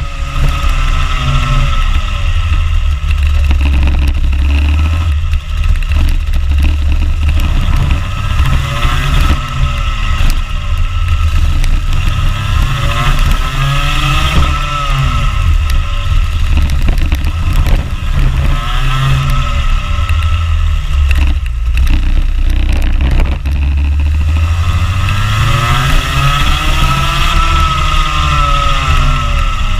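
Rotax Max Junior kart's 125cc single-cylinder two-stroke engine, heard onboard at racing speed, its pitch climbing and falling again and again as it accelerates and lifts for corners, over a heavy low rumble.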